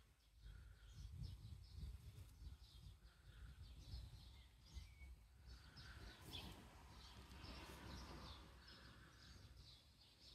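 Faint outdoor ambience: small birds chirping repeatedly, short high calls scattered through, over a low rumble.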